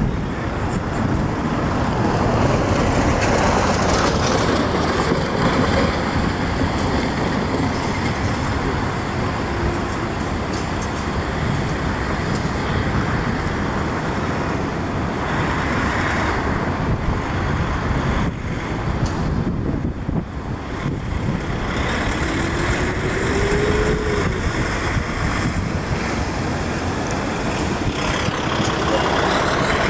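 Steady road traffic noise from vehicles passing close by, with an engine note rising in pitch twice in the second half.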